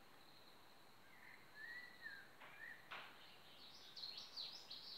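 Near silence with faint bird chirps: a few short gliding chirps from about a second in, then a quicker run of higher chirps near the end. A soft click about three seconds in.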